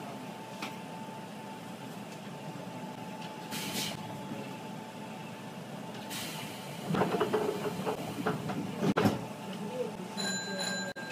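Electric commuter train standing at a station: steady hum of its onboard equipment with a faint steady tone, two short hisses, a stretch of muffled speech about seven seconds in, a sharp click, then a brief electronic tone near the end.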